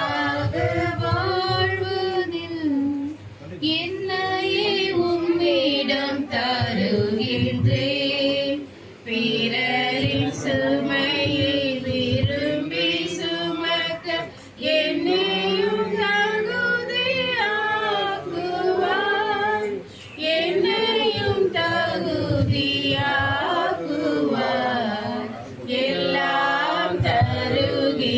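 A church choir singing a Tamil offertory hymn, female voices leading, in long held phrases with short breaks for breath between lines.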